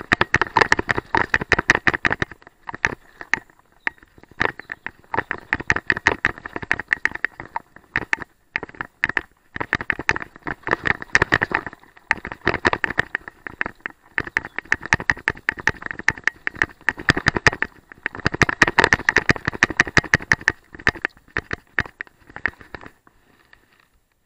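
Mountain bike descending a bumpy dirt trail: rapid, irregular clicking and clattering of the bike's frame, chain and parts over roots and ruts, with tyre noise on dirt and leaves. It thins out and gets quieter over the last few seconds.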